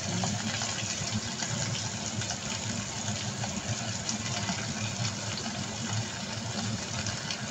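Chicken pieces sizzling in a hot, lightly oiled pot: a steady crackling hiss.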